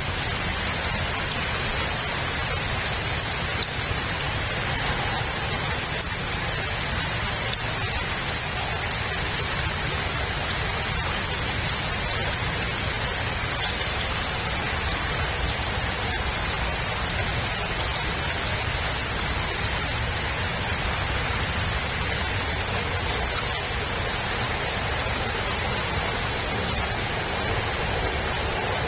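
Steady rain falling: an even, unbroken hiss with no bird calls standing out.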